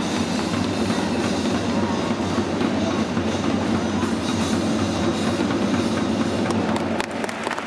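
Stadium crowd noise with supporters' drumming from the stands of a football match, dropping off about seven seconds in.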